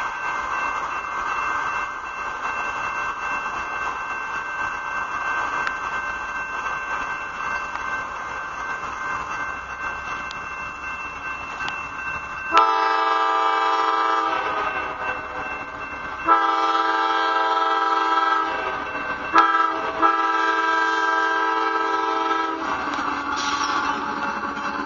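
Freight train approaching, then the lead CSX GE locomotive's multi-chime air horn sounds four blasts from about twelve seconds in: long, long, short, long, the standard grade-crossing signal.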